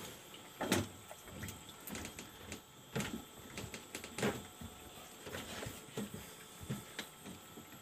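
Irregular light knocks and clicks, about a dozen spread unevenly, over faint steady background noise.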